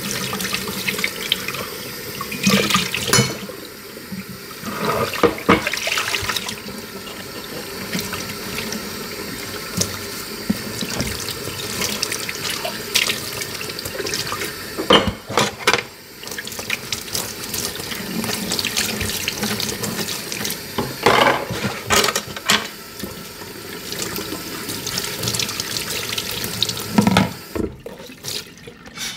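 Water running from a tap into a kitchen sink during washing-up by hand, with clinks and knocks of dishes every few seconds.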